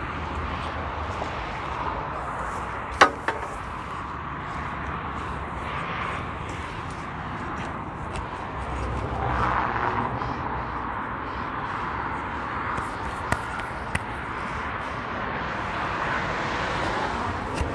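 Steady road traffic noise, swelling as a vehicle passes about nine seconds in. A single sharp knock sounds about three seconds in, with a couple of fainter clicks later.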